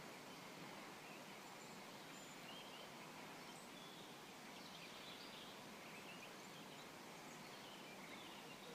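Faint woodland ambience: a steady hiss with scattered short, distant bird calls.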